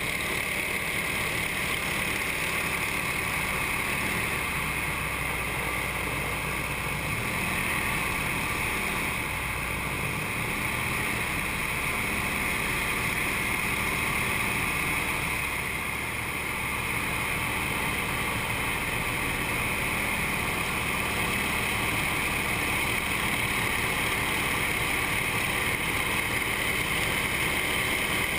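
Nine-cylinder radial engine and propeller of an aerobatic trainer running steadily in level formation flight, heard from inside the cockpit.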